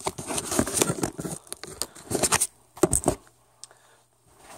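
Handling noise: a rapid jumble of rustling, scraping and knocks for about three seconds, then only a few faint clicks.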